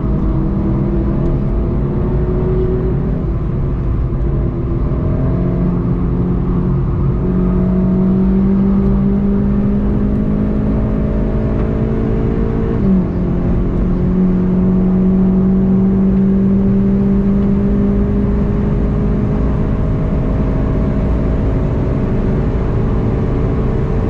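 The turbocharged four-cylinder engine of a VW Golf GTI TCR, heard from inside the cabin, pulling hard at full throttle with its pitch climbing steadily. An upshift about halfway through drops the pitch sharply before it climbs again. Tyre and wind rumble run steadily underneath.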